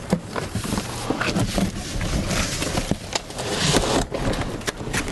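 Cardboard scraping, rustling and irregular knocks as a large evaporative cooling fan, still in its box, is tilted over and set up on its wheels.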